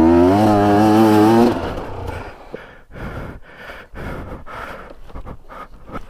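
KTM two-stroke enduro motorcycle engine revving, its pitch rising and dipping, then cutting out abruptly about a second and a half in as the bike goes down on a steep trail. Irregular scrapes and knocks follow as the bike falls over on its side.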